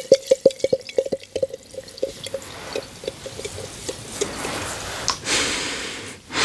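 Water dripping into a container in a quick run of plinks that slows and stops, then water poured in a rising rush that grows loud near the end.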